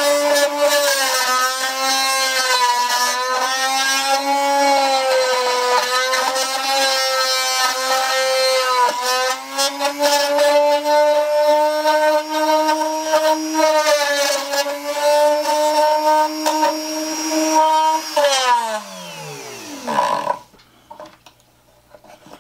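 Dremel rotary tool running at high speed in a hobby drill-press stand, with a spiral RotoZip-style cutting bit boring into wood; its whine wavers and dips as the bit bites. About eighteen seconds in it is switched off and winds down with a steadily falling pitch.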